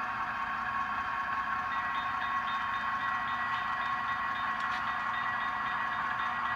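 Diesel engine sound from the Tsunami2 sound decoders of HO-scale model diesel locomotives, played through their small onboard speakers and running steadily. About two seconds in, a steady ringing with a quick regular pulse of about two a second starts as the model grade crossing is activated.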